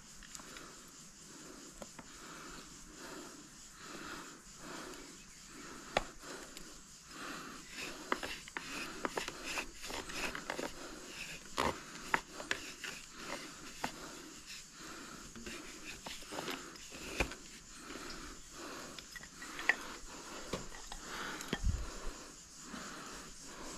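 Bow drill in use: the wooden spindle rasping in the fireboard notch with each back-and-forth stroke of the bow, an even rhythm of about one and a half strokes a second, with scattered sharp clicks and knocks. The strokes stop near the end.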